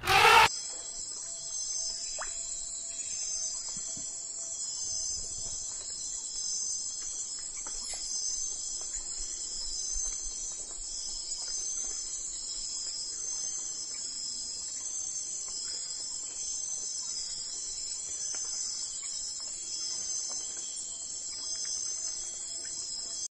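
A chorus of insects chirping: a steady high shrill with a faster pulsing trill beneath it. A brief loud burst comes in the first half-second.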